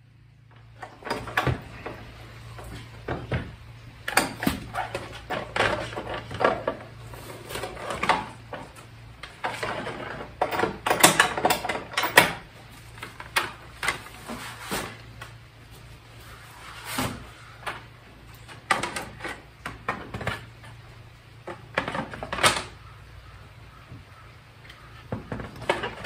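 Irregular clunks, knocks and scrapes of plastic and wood as the apple press is taken apart: the pressing plate and blocks lifted out and the bag of apple pulp shifted in its bucket. A low steady hum runs underneath.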